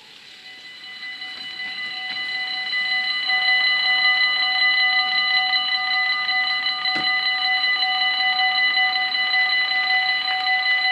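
Automatic half-barrier level-crossing warning bells ringing, several steady tones at once, growing louder over the first few seconds and then holding steady as the barriers lower for an approaching train. A single knock about seven seconds in.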